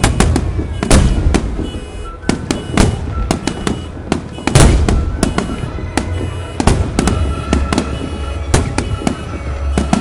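Aerial fireworks bursting: a rapid, irregular string of sharp bangs, the loudest about a second in and again near the middle. Music plays faintly underneath.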